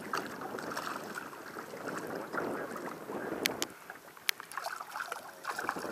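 Water sloshing and lapping against a boat hull, with two sharp clicks a little past halfway.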